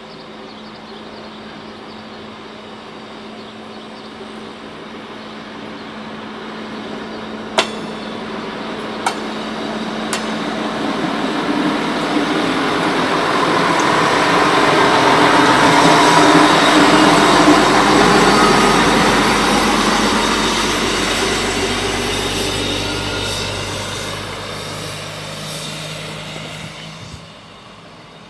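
SA135 diesel railbus passing close by: engine and wheels on the rails grow louder as it approaches, peak as it goes past, then fade as it moves away. Three sharp clicks sound about eight to ten seconds in.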